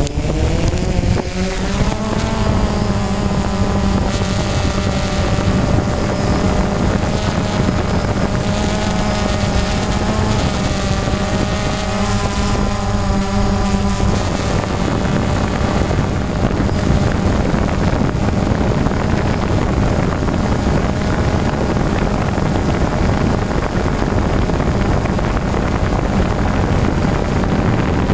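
Multirotor drone's electric motors and propellers spinning up for takeoff, a rising whine that settles into a steady buzzing hum in flight. About halfway through, the whine gives way to steady wind rushing over the drone's microphone, with the rotor noise underneath.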